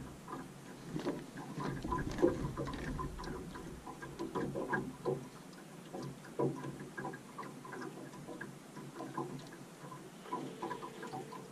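Irregular light clicks and knocks from fishing tackle and boat gear while a hooked fish is played on rod and reel. A steady low hum starts about ten seconds in.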